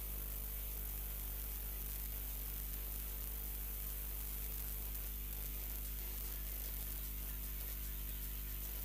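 Steady electrical hum with a stack of even overtones and a faint hiss, unchanging throughout: the live stream's audio line with no commentary or crowd on it.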